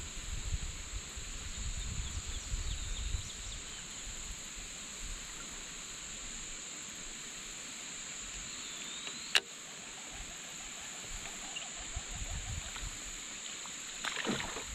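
Steady high-pitched drone of insects in the riverside vegetation. Soft low handling rumble comes during the first few seconds, a single sharp click about nine seconds in, and a brief rush of noise near the end as a lure is cast from a baitcasting rod.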